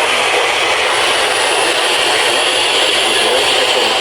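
Steady hiss of radio static from a weak weather-radio signal.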